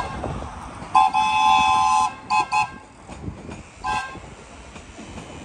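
Horn of an approaching Sóller Railway train sounding for the level crossing: a brief toot at the start, a long blast of about a second beginning a second in, two quick toots, then one more short toot near the four-second mark.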